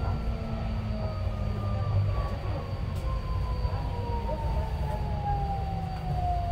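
Driverless metro train's electric traction motors whining down in pitch as the train slows into a station, over a steady rumble of wheels on rail.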